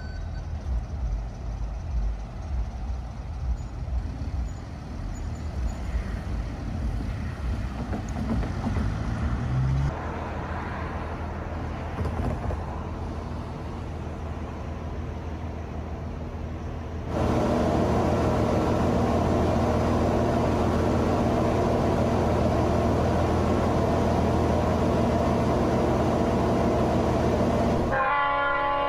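Engines running: a low, uneven hum that changes abruptly, about two-thirds through, to a louder, steady hum holding several tones. Near the end a short, bright train horn chord.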